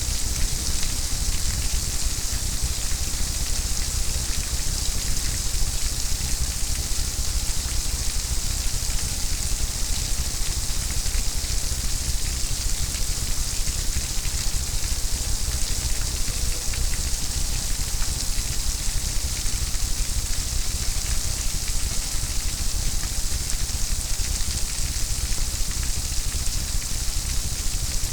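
Rain falling steadily: a constant hiss, strongest in the highs, flecked with the ticks of single drops over a low rumble.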